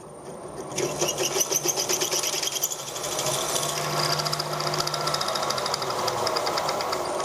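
A machine spindle running in reverse, driving a left-hand drill bit that cuts into a broken stud with a fast, even chatter over a steady motor hum. The sound builds up over the first second as the bit bites.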